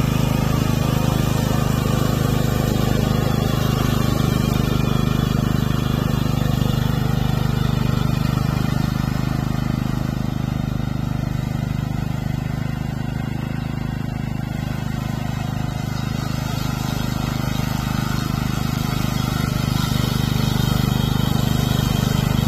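Engine of a remote-control lawn mower running steadily while cutting grass, growing a little quieter in the middle and louder again near the end.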